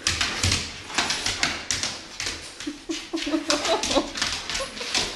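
An excited dog's claws clicking and scrabbling on a hardwood floor as it jumps and wriggles against a person, with a short whine about three seconds in.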